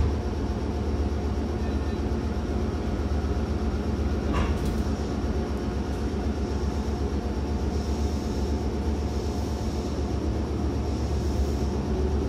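Meitetsu 5000 series electric train heard from inside the car: a steady low rumble and hum, with one sharp click about four and a half seconds in.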